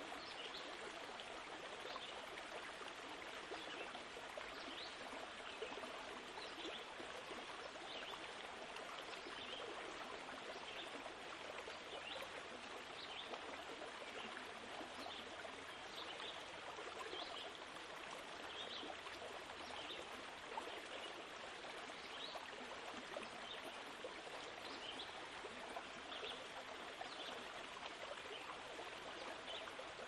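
Steady rushing water noise, like a running stream, with short high ticks scattered through it.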